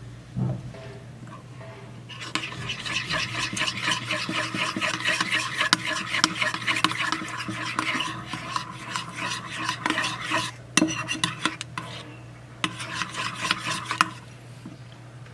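Slime mixture being stirred in a bowl, irregular scraping and clicking strokes of the utensil against the bowl. It starts about two seconds in, pauses briefly near the end, then resumes for a moment.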